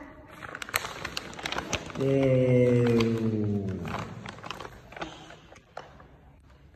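One long, low vocal sound of about two seconds that slides slowly down in pitch, set between soft rustling and light tapping as the child and the bedding move on the floor.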